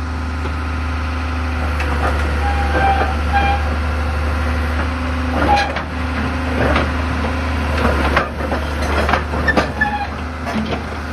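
Hitachi UH045-5 hydraulic excavator's diesel engine running steadily. From about five seconds in there are several sharp metallic knocks and clanks.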